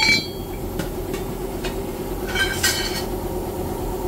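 Steel rod knocked against a motorcycle exhaust pipe to punch through and free the header pipe from the muffler. There is a sharp ringing metal clang at the start, a few light taps, then two more ringing clangs about two and a half seconds in, over a steady low hum.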